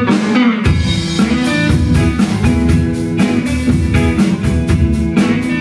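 Live R&B band playing: an electric guitar riff, joined under a second in by bass guitar and drum kit with a steady beat.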